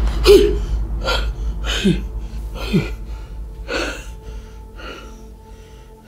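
A man gasping and panting in fright, a breath about once a second, each with a short falling voiced sound, growing quieter. A low music drone sits under it and fades out near the end.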